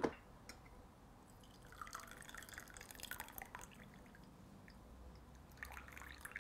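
Thin stream of tea trickling and dripping from a glass infuser into a glass cup, faint, in two short spells.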